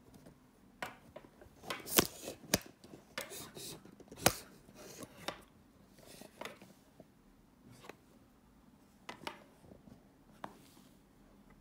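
Handling noise from a phone camera and its stand being moved and repositioned over a table: scattered sharp clicks and knocks with soft rustling between them.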